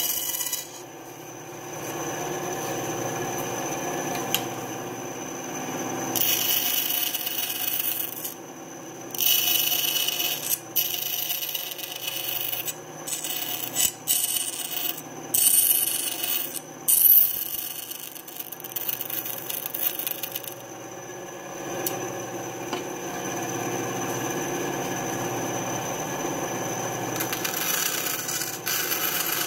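Bandsaw running steadily, its blade cutting thin lite plywood in a string of short cuts, each heard as a burst of rasping hiss over the motor's hum.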